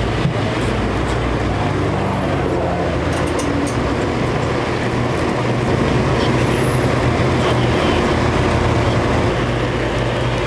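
Small electric circulator fan running with a steady whir and low hum while a freshly baked waffle is held against it to cool.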